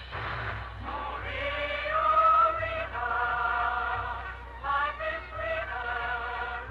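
A choir sings with an orchestra, holding long notes. This is an old broadcast recording: the sound is narrow-band, lacks treble, and has a steady low hum underneath.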